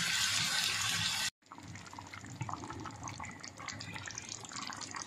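Sliced onions and carrots sizzling in hot oil in a pot. About a second in, the sound cuts off and gives way to quieter bubbling and crackling of tomato sauce simmering around pieces of mackerel.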